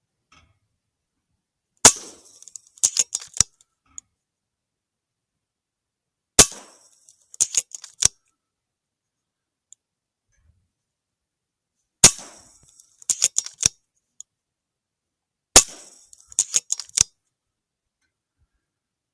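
A .22 FX PCP air rifle firing four shots a few seconds apart, each a sharp crack followed about a second later by a quick run of clicks.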